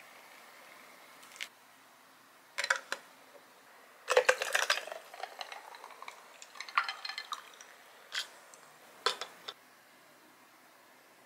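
The tail of a pour of water through a glass tea infuser into a glass pitcher, stopping about a second in. A run of short glass and dish clinks and knocks follows, loudest about four seconds in, as the glassware and tableware are handled and set down on a table.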